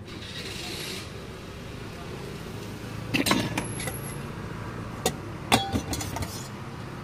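Steel utensils clinking: a spoon and ladle knocking against steel plates and a steel mug of curd, a few sharp clinks in the second half, over a steady background hum.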